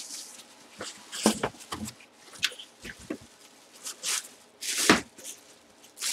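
Cardboard box and clear plastic bag being handled: a series of short rustles and scrapes as a football helmet is lifted out of its box and its plastic wrapping is pulled open, the loudest rustle about five seconds in.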